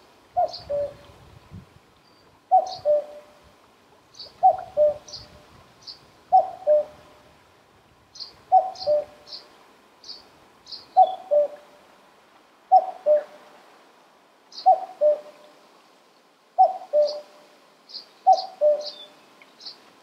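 Common cuckoo calling its two-note "cuckoo", the second note lower than the first, repeated about every two seconds, around ten times. Short high chirps from another small bird are scattered between the calls.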